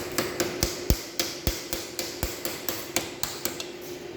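A hammer tapping on metal in quick, irregular strikes, about three or four a second, over a faint steady hum.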